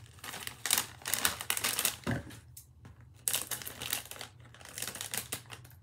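Crinkly chip bag crackling as hands tug at its sealed top, then being snipped open with scissors in the second half.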